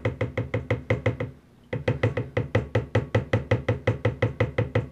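A fine-mesh strainer rapped quickly and evenly against the rim of a plastic mixing bowl, about six knocks a second, with a short break about a second and a half in.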